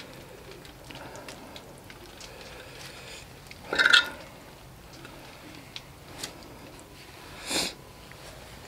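A metal spoon scraping and clinking against a stainless steel bowl as sticky, sauced instant noodles are slid out onto a cast-iron griddle, with soft squishing of the noodles. There are small clicks throughout and two louder scrapes, about four seconds in and near the end.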